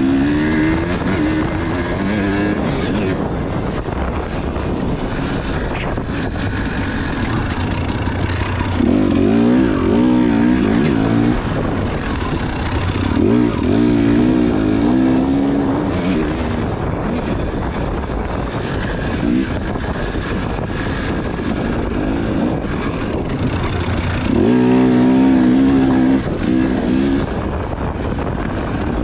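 Husqvarna dirt bike engine being ridden hard, revving up and down as the throttle is worked, with louder surges of revving three times, about nine, thirteen and twenty-five seconds in, over a steady rushing noise.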